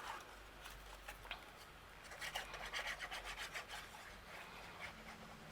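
Faint rubbing and rustling of cardstock being handled and pressed down by hand, with a run of short scratchy strokes about two to four seconds in.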